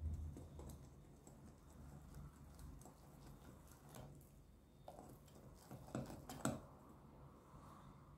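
Small wire whisk stirring thick batter in a glass bowl: faint, irregular clicks and taps of metal against glass, with a few louder knocks about six seconds in.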